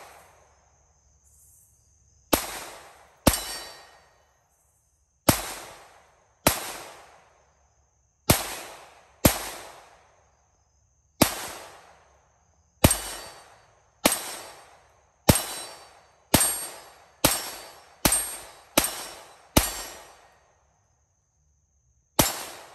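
Taurus Protector Poly .357 Magnum revolver firing about sixteen single shots, first one to two seconds apart and quickening to under a second apart near the end. Each sharp crack trails off in an echo lasting about a second.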